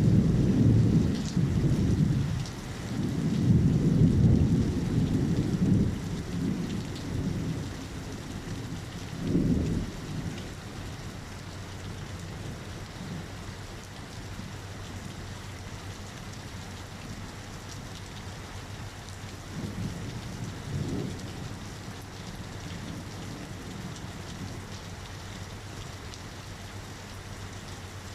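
Thunder rumbling over steady rain. Several low, rolling peals come in the first ten seconds and a weaker one about twenty seconds in, with the rain's hiss continuing throughout.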